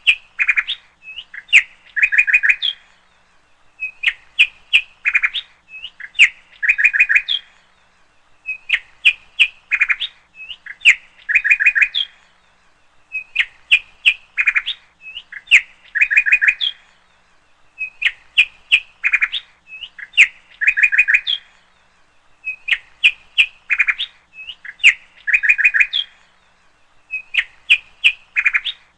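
Bird chirping: the same phrase of sharp high chirps and quick trills repeats about every four and a half seconds.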